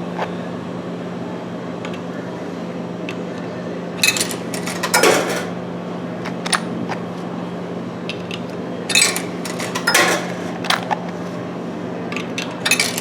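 Coins being fed into a vending machine's coin slot, clinking and rattling down in short clusters about four seconds in, about nine seconds in and near the end, over a steady low hum.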